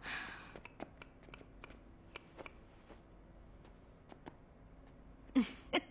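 Faint, irregular light clicks and rustles, like small things being handled. Near the end a voice breaks in loudly.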